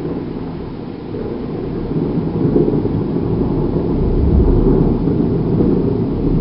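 Rolling thunder: a long, low rumble that swells over the first few seconds and stays loud.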